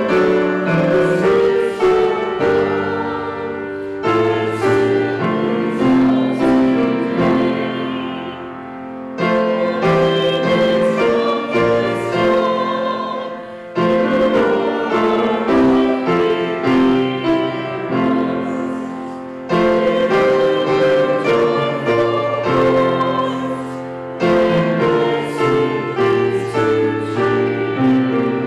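Grand piano played solo: a slow piece of held chords, each phrase struck afresh and left to die away before the next begins every few seconds.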